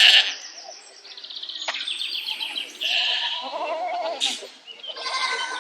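Animal calls. A fast run of high chirping pulses comes first, then a quavering, bleat-like call about three seconds in.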